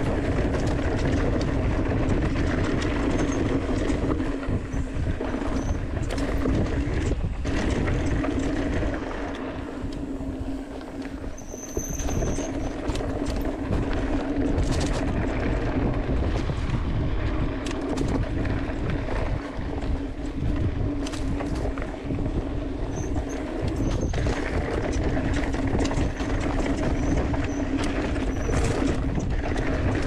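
Mountain bike rolling fast down a dry dirt singletrack: tyres rumbling over dirt and rocks, the bike rattling with scattered clicks, under a steady hum and wind on the handlebar-mounted microphone.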